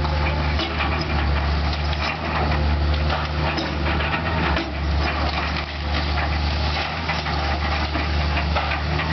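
Heavy diesel demolition machine running steadily, with irregular cracking and crunching of debris being broken apart.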